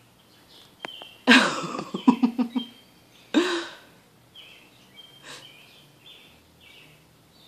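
A person's short vocal outbursts, not words: a noisy cough-like onset followed by a quick run of voiced sounds about a second and a half in, then one more brief voiced sound a second later. Birds chirp faintly in short high notes throughout.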